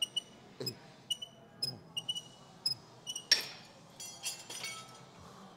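Metal gym weights clinking about twice a second with a short ring on each touch, then one louder metal clang about three seconds in, followed by a few lighter clinks.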